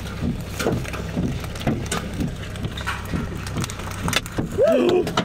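Large hailstones striking the vehicle's body and window glass as a string of irregular sharp knocks, over a steady low rumble. A brief cry that rises and falls in pitch near the end is the loudest moment.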